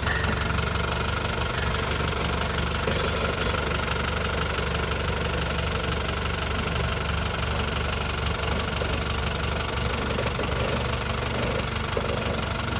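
Land Rover Defender 110's engine running steadily while the truck crawls slowly over a rock step.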